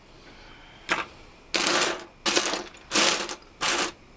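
Loose plastic Lego minifigure pieces clattering as hands rummage through a pile of them: a short burst about a second in, then four rattling bursts.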